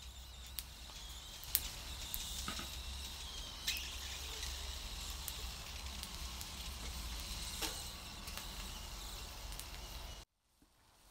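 Abalone in their shells sizzling on a wire grill over glowing charcoal: a steady hiss with scattered sharp pops and crackles over a low hum. The sound cuts off suddenly near the end.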